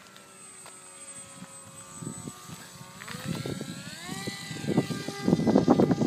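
Electric motor and propeller of a Bixler 2 RC powered glider whining, its pitch steady at first, then rising about halfway through. Over the last second or so, loud gusts of wind buffet the microphone.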